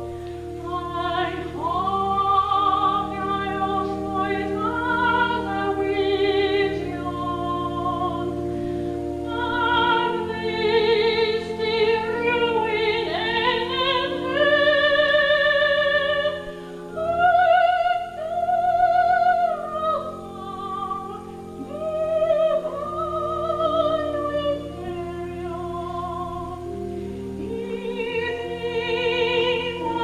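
Music: a woman singing a slow classical, operatic-style song with vibrato over long held accompaniment chords.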